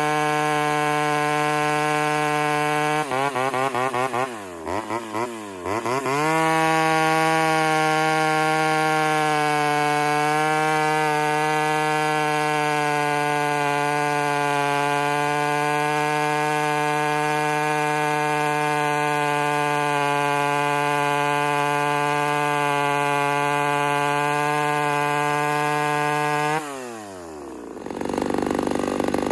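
Ported Homelite Super XL Auto two-stroke chainsaw held at high revs. The pitch drops sharply about three seconds in and climbs back, stays steady for about twenty seconds, then falls off near the end as the throttle is let go.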